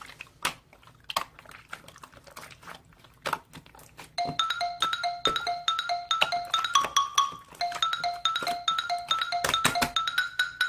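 Scattered sharp clicks and taps, then from about four seconds in a simple background tune of short bell-like mallet notes playing over them.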